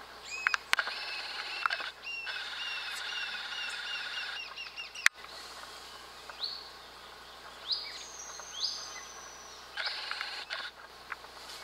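High animal chirps: a fast, regular run of arching notes for the first four seconds or so, then a few separate rising chirps and a thin high whistle held for about a second and a half, with a short run of chirps again near the end. A single sharp click about five seconds in.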